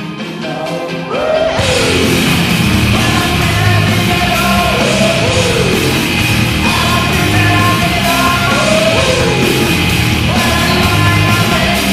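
Pittsburgh Penguins goal song: hard rock with shouted vocals over a heavy, driving beat, getting louder about a second in.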